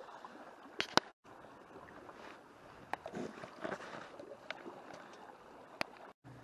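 Calm sea water lapping and sloshing against rocks. Two sharp clicks come about a second in, the second the loudest sound, with a few fainter clicks later.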